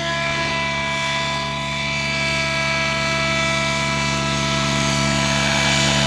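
Gaui X7 electric RC helicopter sitting on the ground with its rotor still spinning: a steady, even whine from the motor and drivetrain over a low rotor hum.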